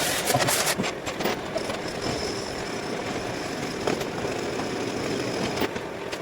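A workshop machine running steadily, with a few clicks early on and single knocks about four and five and a half seconds in.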